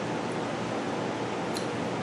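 Steady hiss of room noise, with a faint tick about one and a half seconds in.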